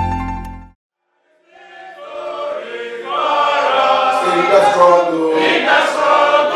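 A music sting ends less than a second in; after a brief silence, a group of union members singing a solidarity song together fades in, one man leading on a microphone, and carries on loudly.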